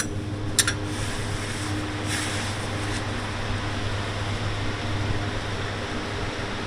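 Steady low hum with an even hiss of background noise, and a single light metallic clink about half a second in.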